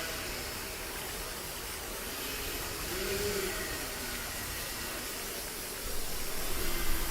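Steady rush of water with a hiss, with a few faint wavering tones in the background and a swell in loudness near the end.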